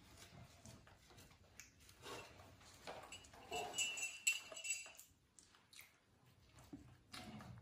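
A metal spoon stirring in a ceramic mug, clinking and scraping with a light ringing for about a second and a half near the middle; this is the loudest sound. Around it come soft rustles and small clicks of bread being torn and a monkey eating.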